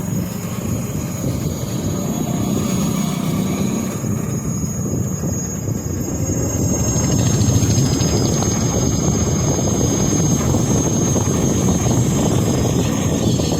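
Ola S1X electric scooter riding at about 40 km/h: steady wind and road rumble with a thin, steady high whine, getting a little louder about halfway through. At this speed the owner hears an occasional 'jharr jharr' rasp from the scooter, which he suspects may come from the summer heat.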